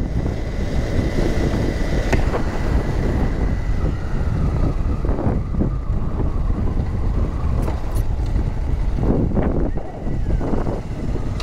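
Motorcycle being ridden along a road: its engine runs beneath a heavy, steady wind rumble on the rider's microphone, with a few short knocks from bumps in the road.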